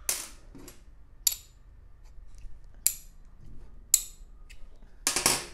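Metal parts of a brushless wall chaser's motor, its permanent-magnet rotor among them, being handled by hand: five or six sharp metallic clicks and clinks a second or so apart, then a short scraping rustle near the end.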